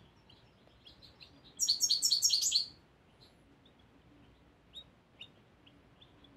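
Young European goldfinch singing: soft scattered single notes, with a loud, rapid twittering phrase about a second and a half in that lasts about a second. The bird is a first-year male still working out and fixing its song.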